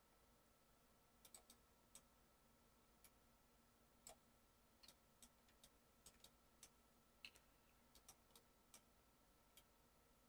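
Faint, irregular clicks of a computer mouse and keyboard, about two dozen scattered through, over a faint steady hum.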